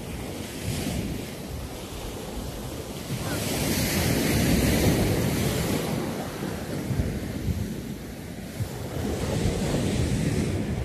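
Ocean surf breaking on the shore, swelling twice as waves come in, with wind rumbling on the microphone.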